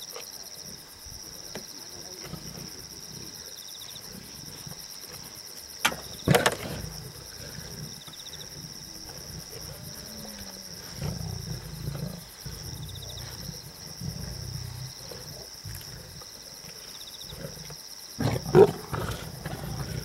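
Lions squabbling over a kill, with growls and two sharp, loud snarls about six seconds in and again near the end. Crickets chirp steadily throughout.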